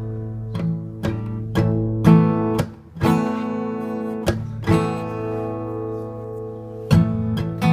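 Acoustic guitar played solo: chords strummed one after another and left to ring, with two chords held for a second or two in the middle.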